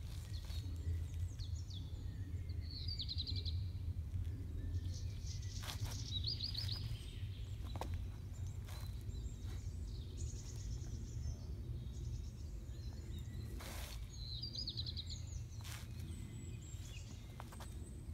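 Outdoor garden ambience: a steady low background rumble, with a songbird singing a short, quick trilled phrase three times and a few faint chirps. A few brief soft scuffs are scattered through it.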